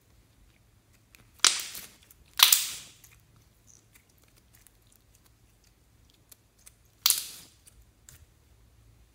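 Clear glitter slime being squeezed and pressed by hand, giving sharp squelching pops: two in quick succession about a second and a half in and one more near the end, each dying away within half a second, with faint sticky clicks between.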